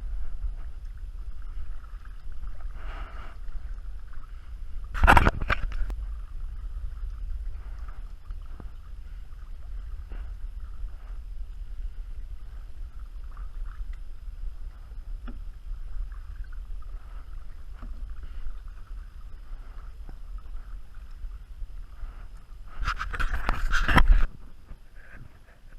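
Kayak on open water: water sounds around the hull with a steady low wind rumble on the microphone, a sudden loud sound about five seconds in, and a louder rush of noise for about a second and a half near the end.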